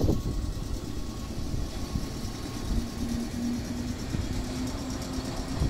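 Yellow JR West electric commuter train running slowly past on the tracks: a steady low rumble, with a faint hum that comes and goes from about halfway through.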